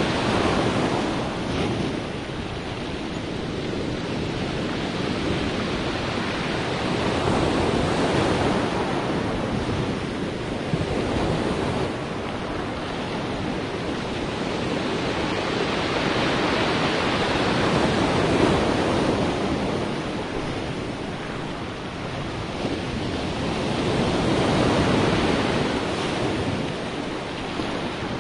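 Sea waves washing in continuously, the surf swelling and easing in slow surges about every eight seconds.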